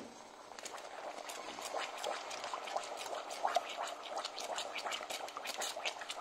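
Boiling caramel sauce with thick cream just added, bubbling and popping in a stainless steel saucepan as a wooden spoon stirs it: a rapid crackle of small pops that builds up in the first second.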